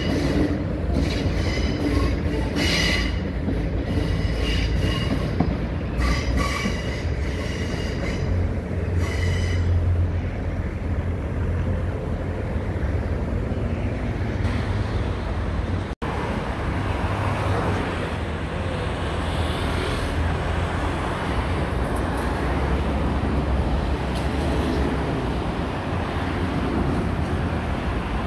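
Athens Line 1 electric train running past below, its wheels squealing in several high-pitched bursts over a heavy low rumble during the first ten seconds. The squeal then dies away, leaving a steady noise of road traffic, broken by a brief dropout about halfway.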